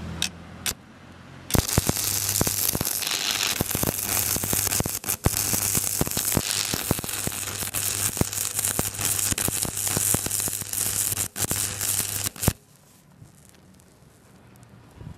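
Electric arc welding on steel: the arc strikes about a second and a half in and crackles and hisses steadily with sharp pops, over a steady low hum from the welder, for about eleven seconds, then cuts off suddenly.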